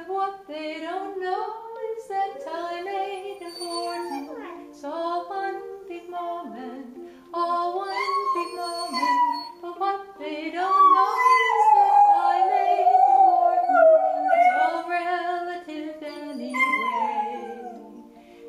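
Beagle howling along with a woman singing a melody. About ten seconds in, one long howl slides slowly down in pitch for several seconds.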